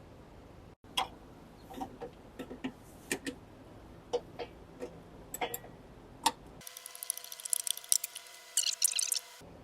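Ratchet wrench clicking as the two 10 mm nuts holding the door handle are backed off: single scattered clicks, then a fast run of clicking for about three seconds near the end.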